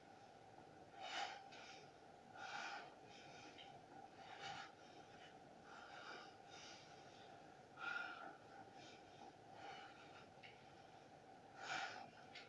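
A man breathing hard in short, noisy bursts every second or two while doing push-ups, with five stronger breaths standing out.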